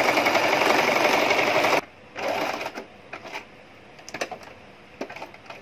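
Electric domestic sewing machine stitching at speed, then stopping abruptly about two seconds in. A short second burst of stitching follows, then a few light clicks.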